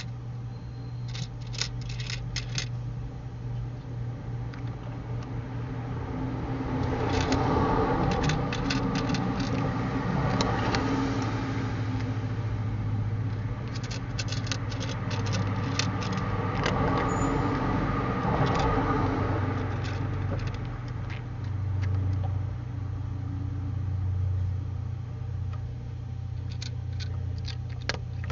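Cat crunching dry kibble: quick clusters of small sharp clicks. A broad rushing noise swells and fades twice through the middle, over a steady low hum.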